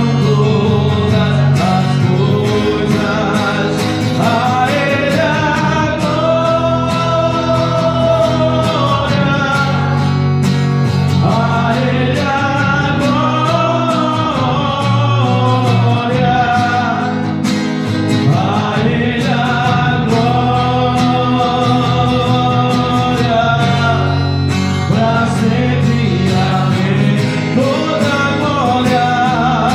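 A man singing a song while strumming an acoustic guitar, his voice holding long notes over the steady strumming.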